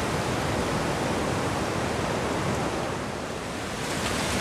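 Ocean surf washing over a shallow beach, a steady rush of noise that eases slightly about three seconds in.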